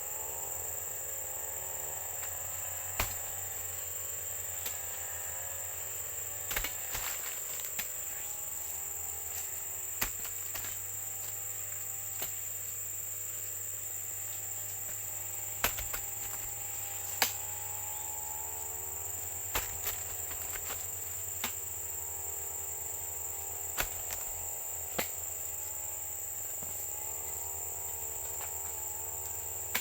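Steady high-pitched insect drone, like crickets or cicadas, with a fainter droning tone underneath that wavers up and down in pitch, and scattered sharp clicks.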